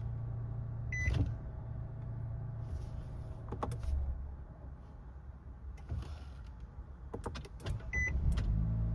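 2017 Nissan Rogue Sport's MR20DD 2.0-litre four-cylinder idling, shut off about three and a half seconds in, then cranked and started again near the end with a short, normal crank, a sign that the repaired VIN J relay circuit is working. Short electronic beeps come about a second in and again near the end.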